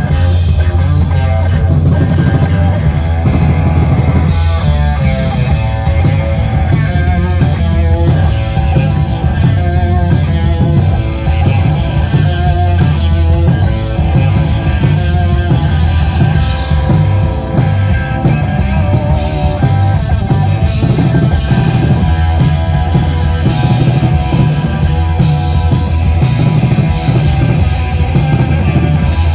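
Live heavy rock band playing loud on electric guitar, bass and drum kit, with a heavy, steady low end and no breaks.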